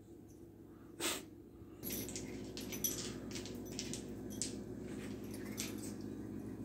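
Small puppy nosing and licking an ice cube on a tile floor: scattered light clicks and taps of ice and claws on the tile over a steady low hum, with one sharper knock about a second in.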